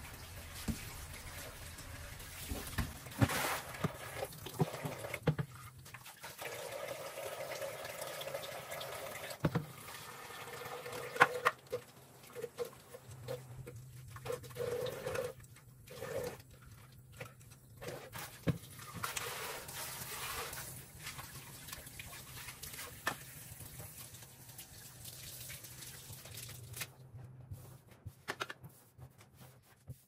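Water running from a kitchen tap into a sink while dishes are rinsed, with clinks and knocks of items against the sink. The running water stops near the end.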